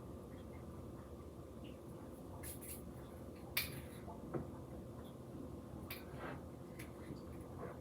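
Low steady room hum with a few scattered light clicks, the loudest a little over three and a half seconds in.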